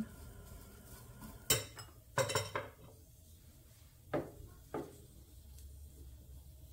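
Kitchen utensils clinking and knocking against cookware: two sharp, ringing clinks in the first few seconds, then two duller knocks a couple of seconds later, over a faint steady low hum.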